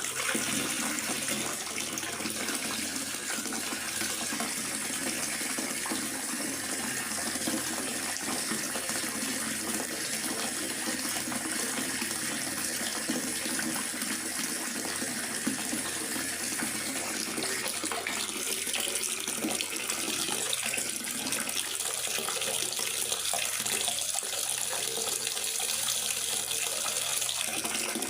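Steady rain falling in a forest: an even, unbroken hiss of water.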